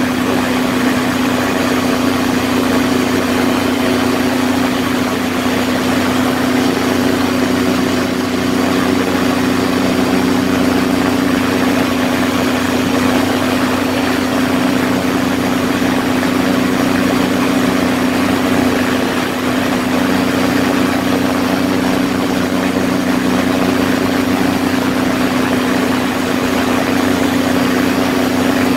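Quicksilver ultralight's engine running steadily in flight, a constant low hum with a steady pitch, heard from the open seat over rushing air.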